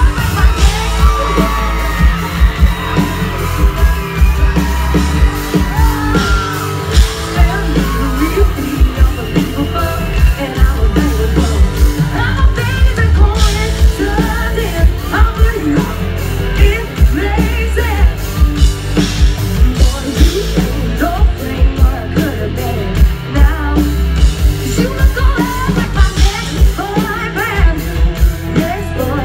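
A live country-pop band playing with a steady, heavy drum beat while a woman sings lead into a microphone.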